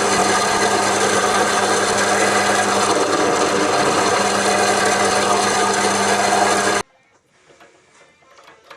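A power tool running steadily under load as it works a metal part, a motor's hum under a continuous rasping, straightening the part; it cuts off abruptly near the end.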